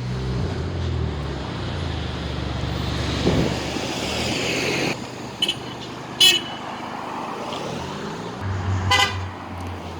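Road traffic going by, one vehicle passing close in the middle, with short car-horn toots in the second half: a couple of quick blips and one brief honk about nine seconds in.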